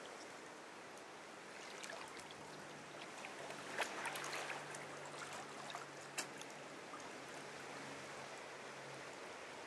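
Seawater lapping and trickling among rocks in a shallow pool, a low steady wash of water with a couple of small sharp splashes or ticks about four and six seconds in.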